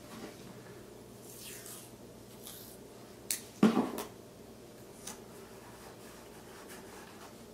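Faint handling noises of hands and masking tape on the plastic face of a truck instrument cluster, with soft rustles. About three and a half seconds in comes a brief cluster of sharper clicks and rustles, the loudest moment.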